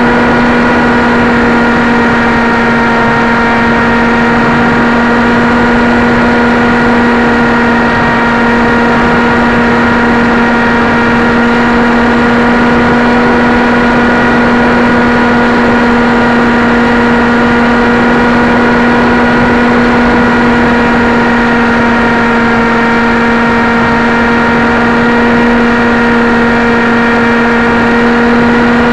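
Electric brushless motor and propeller of a Dynam Hawk Sky RC airplane running at a steady throttle in flight, heard from the plane's own onboard camera, as a steady hum of unchanging pitch over the rush of air.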